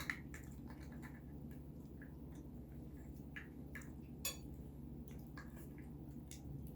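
Faint scattered clicks and soft wet squishes of cooked land crab being picked apart and eaten by hand, over a steady low hum.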